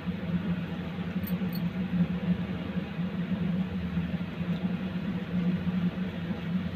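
Oiled hands rolling and pressing soft milk-powder dough into balls on a plate: soft, irregular squishing and rubbing, over a steady low hum.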